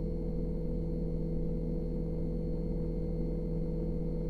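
Steady low electric hum of a running motor, unchanging throughout, with a few constant tones in it.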